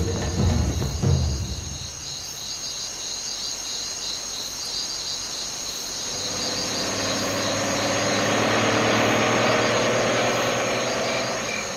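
Night ambience of crickets chirping steadily, a constant high trill with a pulsing chirp beneath it. About halfway through a lower, fuller sound swells in under the crickets and grows louder.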